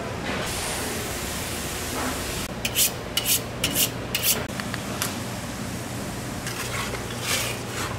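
Knife being honed on a sharpening steel: a quick run of metal-on-metal scraping strokes starting about two and a half seconds in, with a few more strokes near the end.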